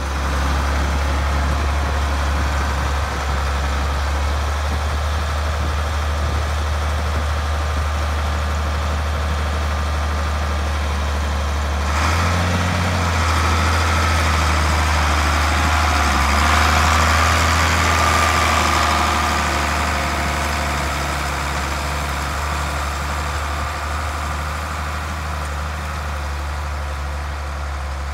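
International Harvester 1066 tractor's turbocharged six-cylinder diesel engine running steadily, then louder from about twelve seconds in as it pulls off with the disk harrow in tow, and growing fainter near the end as it moves away.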